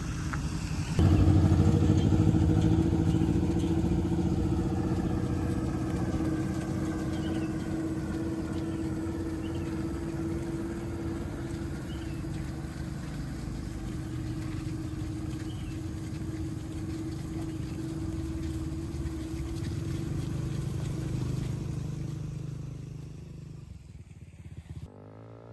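A motor vehicle's engine running steadily, starting abruptly about a second in and fading away near the end.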